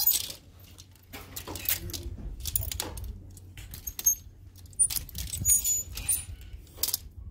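Plastic clothes hangers clicking and clacking against one another and sliding along a clothing rack as garments are pushed aside one by one, in an irregular run of sharp clicks. A steady low hum of store background noise lies under it.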